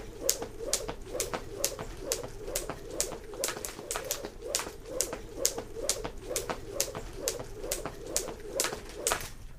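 Jump rope being skipped steadily, the rope slapping the floor about twice a second in an even rhythm, with a low whir of the rope between slaps.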